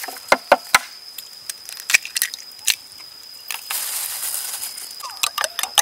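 An egg cracked on the rim of a ceramic bowl: a few sharp taps of shell on the bowl, then a brief hiss, and near the end a run of quick clicks.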